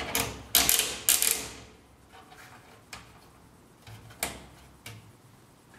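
Handling noise as a rubber ring is worked onto a bike carrier's front wheel support strap: three short, loud scraping rustles in the first second and a half, then a few single clicks.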